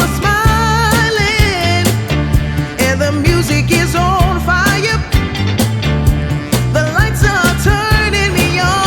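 A song playing as background music: a sung melody with wavering pitch over a steady beat and bass line.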